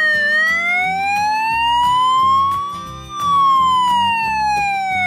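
Cartoon emergency-vehicle siren sound effect: one slow wail that rises for about three seconds, then falls again. Children's background music plays underneath.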